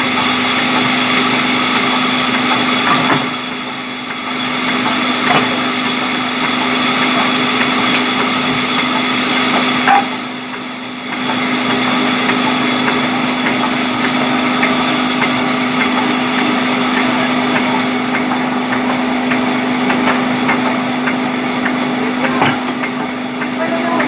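Large sawmill band saw cutting lengthwise through a thick mahogany slab: a loud, steady hum with a constant tone under the rasp of the blade in the wood. It drops quieter briefly twice, about three and ten seconds in.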